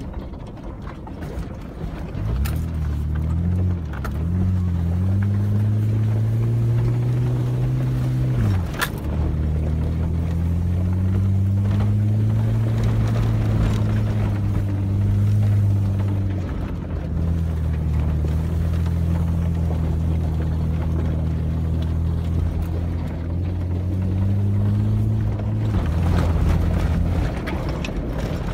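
Toyota Land Cruiser engine running at low speed as the truck crawls over a rocky trail, heard from inside the cab. Its pitch rises and falls with the throttle and drops sharply about eight seconds in, with a few knocks from the truck jolting over rocks.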